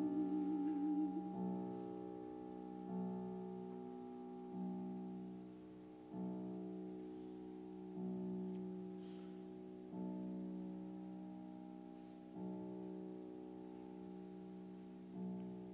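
Grand piano playing a slow series of soft chords, one about every two seconds, each left to ring and fade. A flute's held low note with vibrato ends about a second in.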